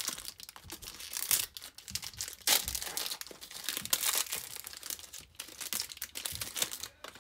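Foil pouch of a Polaroid instant film pack being torn open by hand: irregular crinkling and tearing of the foil, loudest about two and a half seconds in.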